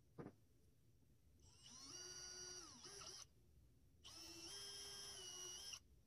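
Cordless Milwaukee drill/driver run in two short bursts of about a second and a half, its motor whine spinning up and winding down each time, as it works at the edge of a vinyl gutter channel. A single click comes just after the start.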